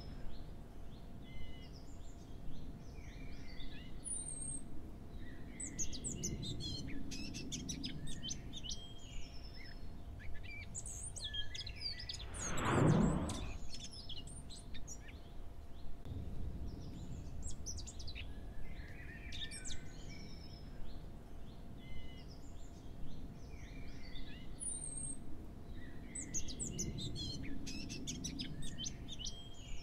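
Birds chirping and singing in many short, high calls throughout. About thirteen seconds in, a single loud whoosh swells and fades.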